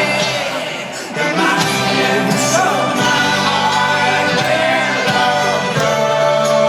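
Live folk-rock band music, dense and loud, with singing voices over it; the sound dips briefly about a second in, then comes back full.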